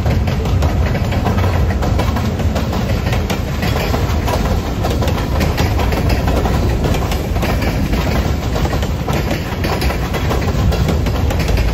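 Freight train cars rolling past at close range: a steady heavy rumble of steel wheels on rail, broken by frequent short clicks and knocks from the wheels.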